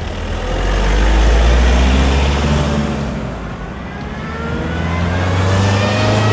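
Toyota RAV4 II 2.0 16V four-cylinder turbodiesel engine accelerating, its pitch climbing steadily. The loudness dips around the middle and builds again near the end.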